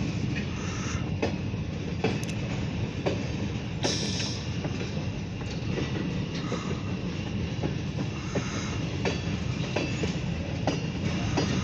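Freight cars of a shoved train rolling past: a steady low rumble of wheels on rail, with the wheels clicking over rail joints about once a second and a brief high wheel squeal about four seconds in.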